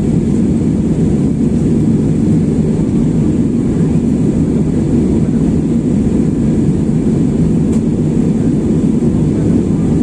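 Steady, deep cabin noise of a jet airliner in flight: engine and airflow noise heard through the fuselage.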